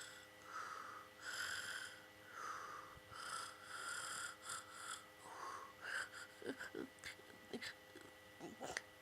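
Sleeping domestic cat snoring, one breath about every second. About five seconds in the rhythm breaks up into short clicks and little squeaky sounds.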